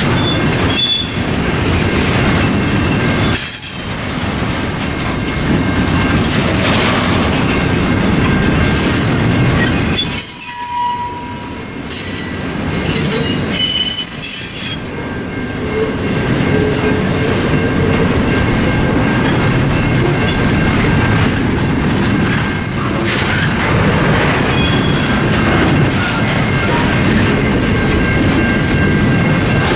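A CSX intermodal freight train's double-stack container cars rolling steadily through a level crossing, wheels clattering over the rail joints and squealing high-pitched several times, mostly around the middle. The crossing's mechanical bells ring underneath.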